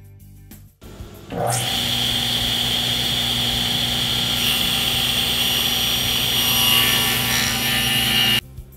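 Table saw running and cutting a shallow groove, about a quarter inch deep, into a plywood strip: a loud, steady whine with a high ring over a low hum. It starts about a second in and cuts off abruptly near the end.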